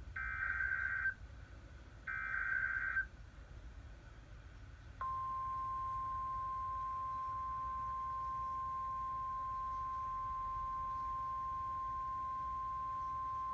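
NOAA Weather Radio emergency alert from station KEC74: two one-second bursts of screeching digital SAME header data, the coded start of a severe thunderstorm warning. About five seconds in, the steady 1050 Hz warning alarm tone begins and holds, signalling that a warning message follows.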